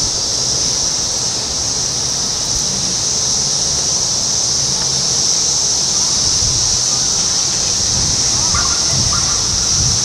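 Periodical cicadas singing: a steady, loud, high-pitched drone that holds unbroken, with some low wind rumble on the microphone.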